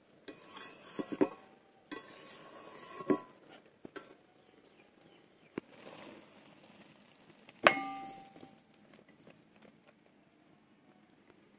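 Metal kadai and spatula clinking and scraping as a thick curry is tipped out into a steel bowl. The knocks come in short clusters, then one sharp ringing metal clank about two-thirds of the way through.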